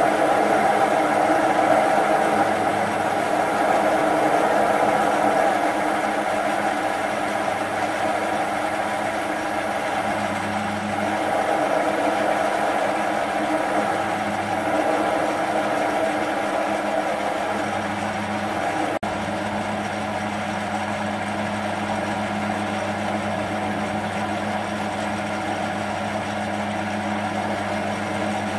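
Small benchtop metal lathe running with a steady motor hum while a carbide tool cuts a taper into chrome-moly steel. The cutting noise swells and fades as the tool feeds in.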